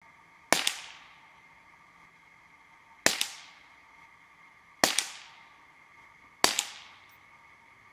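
Four suppressed shots from a CZ 452 Varmint .22 LR rifle fitted with a thin-walled aluminium sound moderator, each a sharp crack with a second crack a split second after and a short fading tail. The owner reckons the moderator cuts the report by only about 30 percent.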